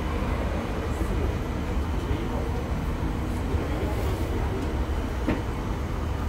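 Roosevelt Island Tramway aerial cable car cabin in motion, heard from inside the cabin: a steady low rumble, with a single sharp click about five seconds in.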